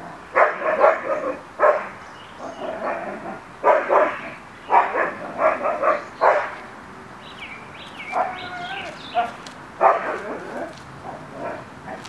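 A dog barking in rapid runs of barks, most through the first six seconds and again about ten seconds in, with a higher wavering call around eight seconds. Under it runs a steady hiss from the camera's automatic gain control.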